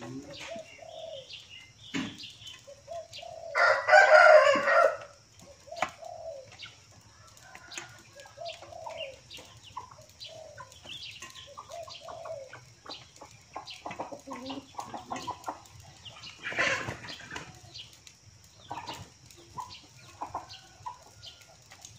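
Chickens clucking on and off, with a rooster crowing once, loudly, about four seconds in. Scattered light knocks and clicks run underneath.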